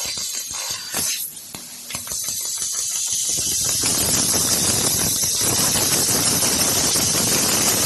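1 kW fiber laser cutting machine fly-cutting sheet metal: a loud, steady hiss starts about three and a half seconds in, after a quieter stretch with scattered clicks.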